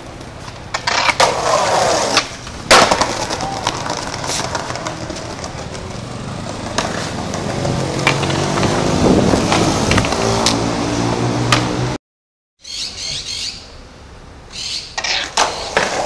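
Skateboard wheels rolling over concrete pavement, with several sharp clacks of the board, the loudest about three seconds in. The sound cuts out abruptly about twelve seconds in, then returns quieter with a few more knocks.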